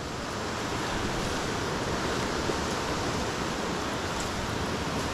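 Steady rushing noise of river rapids.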